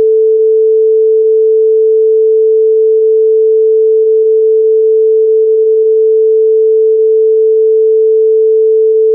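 Test-card tone: a single loud, steady, mid-pitched pure tone held without any change.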